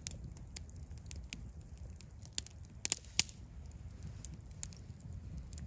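Campfire crackling, with irregular sharp pops over a low rumble; the loudest pops come about three seconds in.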